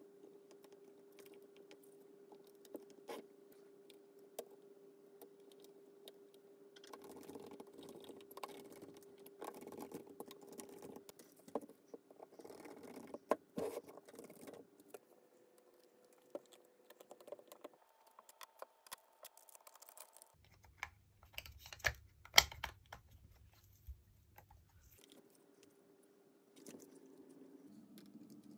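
Scattered small clicks, taps and rustles of hands handling a partly disassembled DSLR camera body, its plastic parts and a small screwdriver, with a few sharper clicks past the middle.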